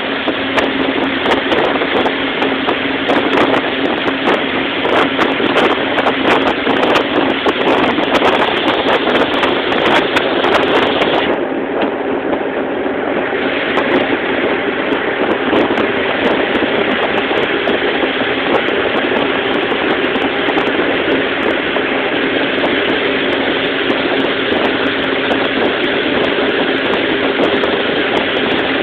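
Motorboat engine running steadily at towing speed, a steady engine note under the rush of wind and churning water in the wake. Wind crackles on the microphone during the first ten seconds or so.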